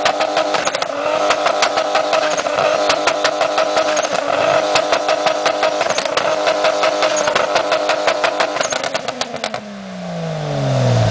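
Turbocharged BMW E30's engine held at steady revs, its note then falling in pitch near the end.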